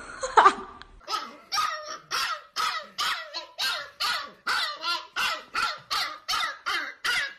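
Husky puppy barking in an even run of short, high yelping barks, about two a second, starting about a second in. A brief, louder cry comes just before.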